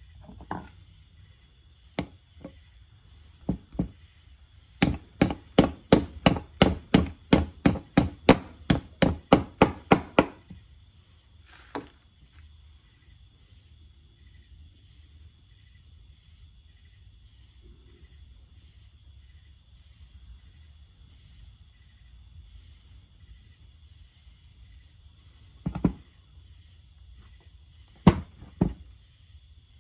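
Hammer blows on the metal of a wheel hub's stud work: a few single taps, then a quick run of about twenty sharp blows at roughly four a second, and a couple of single knocks near the end.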